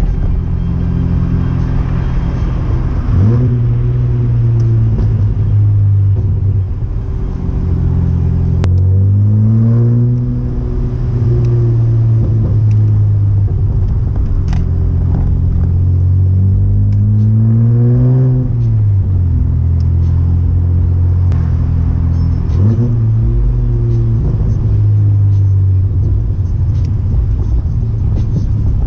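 1994 Chevrolet Omega's naturally aspirated 3.0-litre 12-valve inline-six (C30NE) heard through a 2.5-inch sport exhaust with two mufflers while driving. It holds a steady note, rises in pitch under throttle several times, and drops back sharply once a little past halfway.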